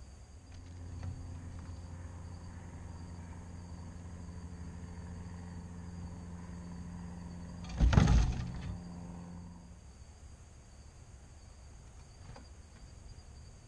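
A steady low motor or engine hum starts about half a second in and stops just before ten seconds. A loud thump comes about eight seconds in. Insects trill faintly and steadily throughout.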